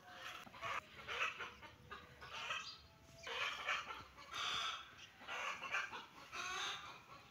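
Chickens clucking: a run of short repeated calls, about one or two a second.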